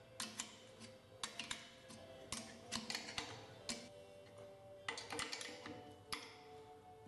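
Metal clicking and ticking of a wrench working the nuts of a stainless steel tapping clamp on a steel pipe, tightened a little at a time, in short clusters of quick clicks about every second, over faint background music.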